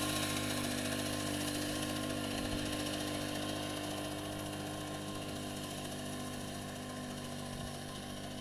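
Small engine of a rice-cutting machine running steadily, slowly getting fainter.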